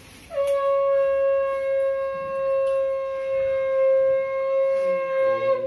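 Conch shell (shankha) blown in one long, steady note of about five seconds, the ritual conch blast of a Bengali ceremony.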